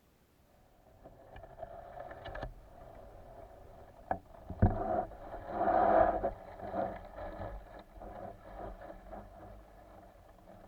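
Water sloshing and splashing that builds up after a quiet start, broken by a few sharp knocks, the loudest about four and a half seconds in.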